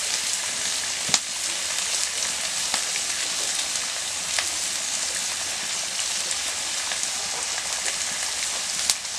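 Pumpkin, potato and prawn curry simmering in a karai over a wood fire: a steady bubbling hiss with a few sharp clicks, and a click near the end as a spoon goes into the pan.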